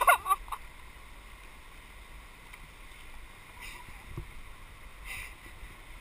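Steady rush of river current around an inflatable kayak on a riffled whitewater stretch, with a loud, sharp burst of sound right at the start and a few softer splashes about three and a half to five seconds in.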